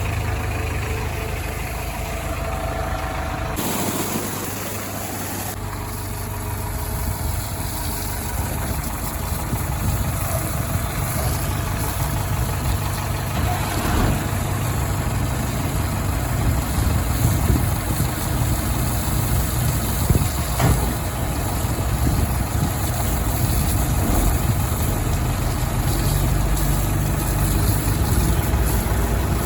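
Diesel engine of a JCB 3DX backhoe loader running steadily while it loads sand, with a couple of brief knocks in the second half.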